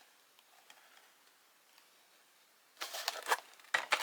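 Handling noise: after a quiet stretch, a short burst of rustling and clicking about three seconds in and another right at the end, as a collectible figure and its packaging are handled.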